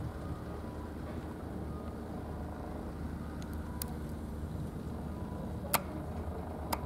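Steady low outdoor rumble, like distant road traffic. Two sharp clicks about a second apart cut through it near the end; the first is the louder.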